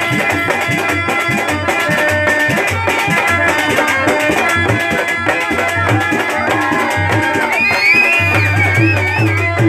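Telugu burrakatha folk music: hand drums beat a fast, steady rhythm under a melody with sliding notes.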